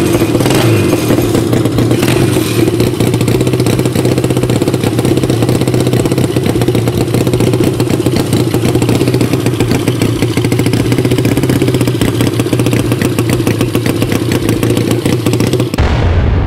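The 175 cc twin-cylinder engine of a home-built Honda Monkey mini-bike runs steadily and loudly. Near the end it cuts off abruptly into rock music.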